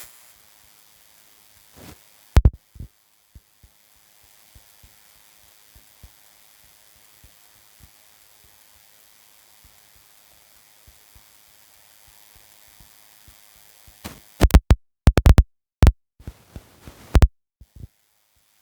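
Faint, quick, irregular low ticking, with two loud sharp clicks about two and a half seconds in and a cluster of loud clicks and knocks near the end.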